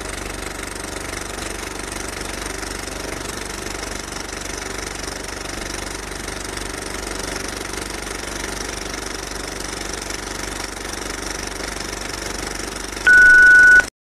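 A steady mechanical running noise with a low hum, engine-like, holding an even level. Near the end it cuts to a loud single-pitched beep lasting about a second, like a censor bleep.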